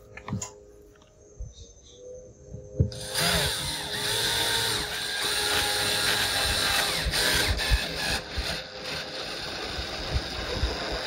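A few handling knocks, then a cordless drill running steadily from about three seconds in, its bit working into a eucalyptus pole.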